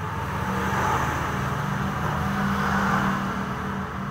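A motor vehicle engine running steadily, with a rushing noise that swells twice, about a second in and again near three seconds.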